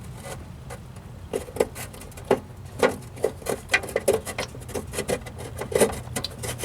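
Irregular small plastic clicks and scrapes as a turn-signal bulb socket is pushed and twisted against its housing without seating.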